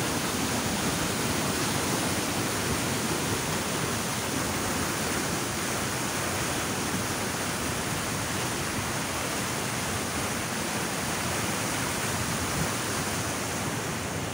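Water pouring over a brick weir and churning into the pool below: a steady, even rush.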